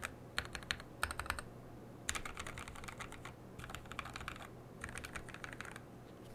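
Typing on a Coriander mechanical keyboard with lubed and filmed Raed switches on a POM plate and SP SA keycaps: quick keystrokes in several short runs with brief pauses between them, stopping shortly before the end.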